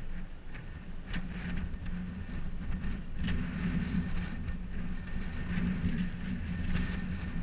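Wind buffeting an exposed microphone: a low, unsteady rumble, with a few faint, brief higher sounds through it.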